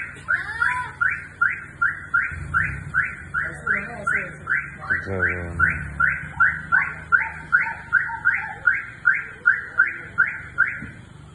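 A car's electronic warning sounder chirping in a steady series, about two and a half short chirps a second, then stopping shortly before the end, over a low engine hum.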